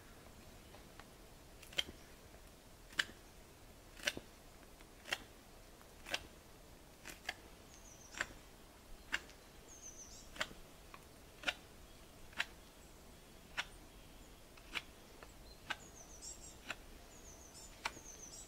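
Knife carving a hazel spindle, each stroke a short, sharp cut about once a second.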